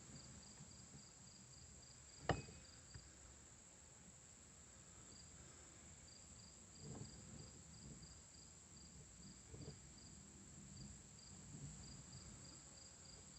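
Faint insects chirping in a steady pulsing rhythm, with one sharp crack about two seconds in.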